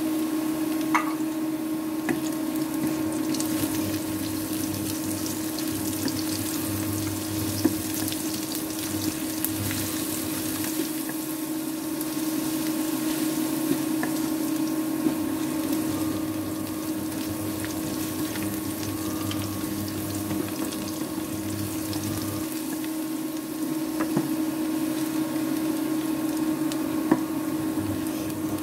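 Onions, crushed garlic, bay leaf and dried red chilies sizzling in oil in a steel wok, stirred with a wooden spatula that scrapes and taps the pan now and then. A steady hum runs underneath.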